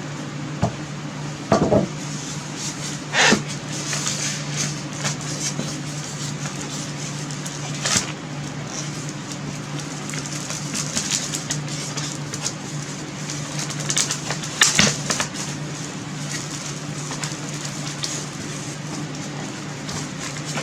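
Scattered rustles and knocks of packaging being handled during unpacking, over a steady low hum.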